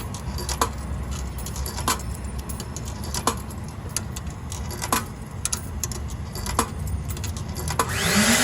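A series of sharp clicks, one every second or so, over a low rumble, then near the end the coin-operated car-wash vacuum's motor starts with a rising whine and a loud rush of air.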